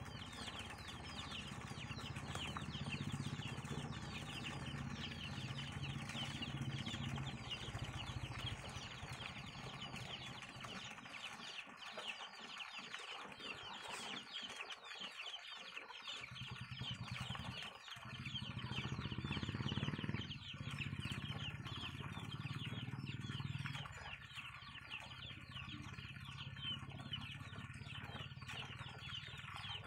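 Many birds chirping throughout in rapid, high cheeps, over a low hum that drops out for a few seconds around the middle and fades again near the end.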